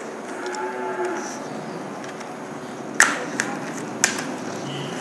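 Three sharp clicks from small items being handled on a tabletop, the loudest about three seconds in and two lighter ones after it, over steady room hiss.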